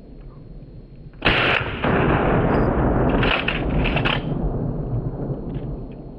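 A 12-gauge Mossberg 500 pump shotgun fires a slug a little over a second in: one sudden loud blast with a long tail that fades over the next few seconds. Around three to four seconds in, a few sharp clacks come as the pump is worked and the spent shell is ejected.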